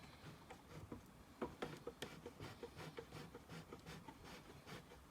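Faint, irregular small clicks and rubbing, several a second: hand-handling noise from adjusting a large-format camera.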